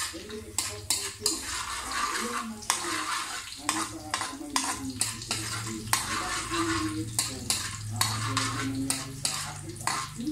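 Metal spoon scraping and clinking against a wok, stirring food as it sizzles in hot oil: sautéing. The spoon strikes come several times a second over a steady sizzle.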